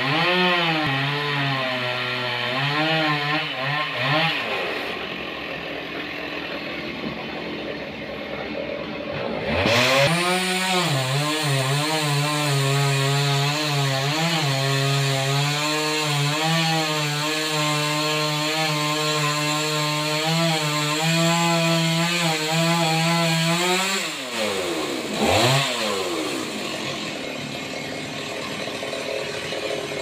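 Engine-driven saw on a sawmill cutting a large mahogany log. The engine speed wavers at first, then eases off. About ten seconds in it speeds up sharply and holds steady under load with a cutting hiss, then drops back with one quick rev near the end.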